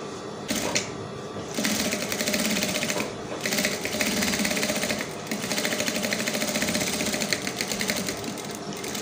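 Table-mounted industrial sewing machine stitching in three runs of a second or two each, with short stops between and a brief blip just before, its needle clicking in a fast, even rattle. It is understitching a seam on the lining of a bodice.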